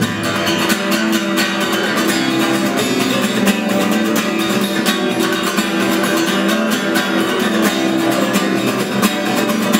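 Acoustic guitar strummed steadily, an instrumental passage with no singing.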